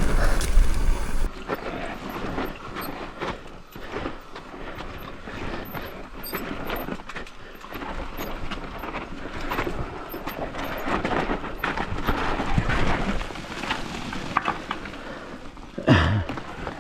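Mountain bike descending a loose, dry, rutted dirt trail: tyres crunching and sliding over dirt and rocks, with frequent small knocks and rattles from the bike.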